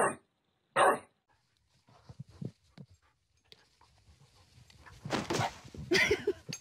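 An English bulldog barking twice, short barks about a second apart, at the start. Later come faint scattered sounds, then a louder burst of noise about five seconds in.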